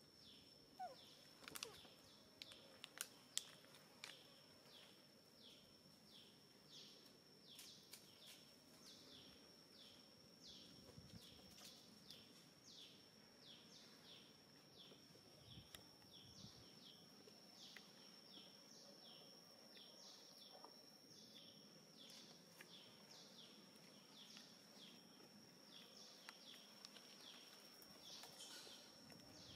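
Faint wildlife calls: a steady high whine with a short falling chirp repeated evenly, a little under twice a second. A few sharp clicks sound in the first few seconds.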